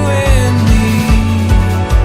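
Background music with a steady drum beat, a held bass and a gliding melody line.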